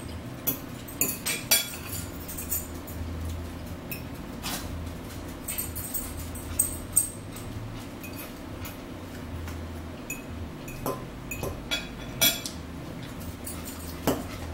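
Metal fork clinking and scraping against a salad bowl as salad is picked up and eaten, a string of sharp irregular clinks with chewing between them. A low steady hum runs underneath.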